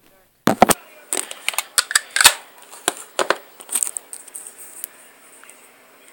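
Handling noise: a quick run of sharp clicks and knocks as the phone and objects are moved about. The first two seconds or so are the loudest, then it thins to faint ticks.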